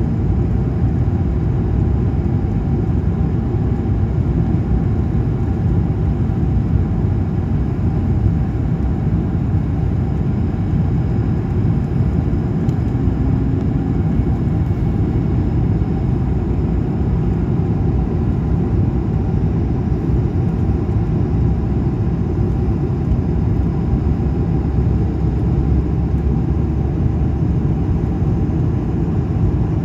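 Airliner turbofan engine and rushing airflow heard from inside the cabin beside the engine in flight: a loud, steady low roar with a faint hum above it.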